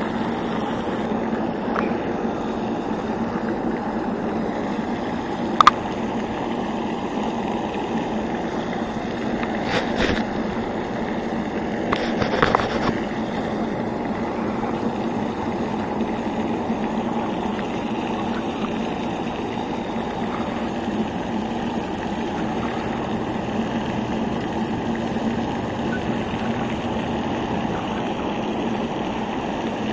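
Steady rush of splashing water from a pond fountain, with a steady low hum underneath. A few brief clicks stand out about five, ten and twelve seconds in.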